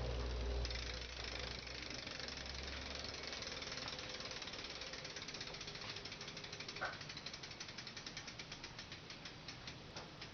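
Bicycle freewheel ticking as a lifted wheel coasts: a rapid run of clicks that slows, the clicks spreading further apart toward the end.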